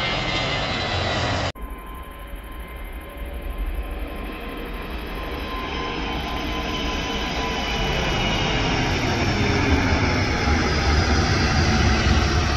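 Twin-engine jet airliner climbing out after takeoff: steady engine roar with a faint whine, growing louder throughout, the low rumble strongest near the end. A different jet's engine noise fills the first second and a half and cuts off abruptly.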